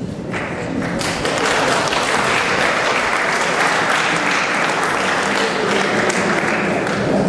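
An audience applauding. The clapping starts a moment in and goes on steadily.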